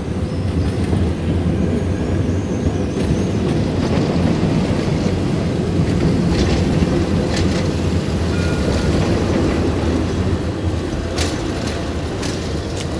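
TFS low-floor tram running past close by: a steady low rumble that swells as it draws level, with a few sharp wheel clicks on the rails in the second half.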